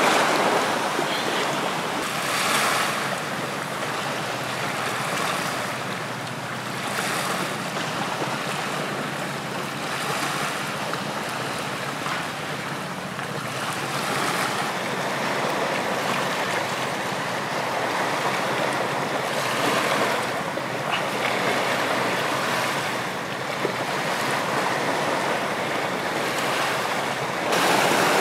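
Sea waves breaking and washing up a sandy beach, a steady wash that surges every few seconds and grows louder near the end.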